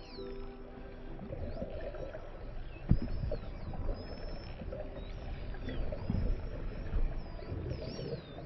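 Short-finned pilot whales whistling underwater: many short high whistles that rise and fall in pitch, over a low rumbling background, with a single sharp knock about three seconds in.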